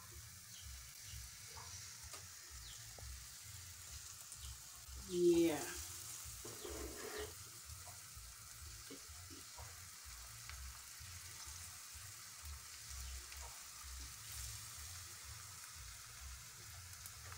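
Pancake batter frying in oil in a stainless steel pan: a steady, fairly quiet sizzle, with the light scrape and dab of a spoon spreading the batter. A brief louder sound about five seconds in.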